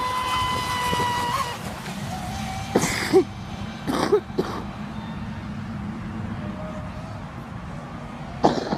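Electric RC speed boat's brushless inrunner motor (TP Power 3640, 2080 kV, on 5S LiPo) running at full throttle. It makes a steady high-pitched whine that fades after about a second and a half and returns faintly, lower, later on. A few short, loud, sharp noises come about three and four seconds in and again near the end.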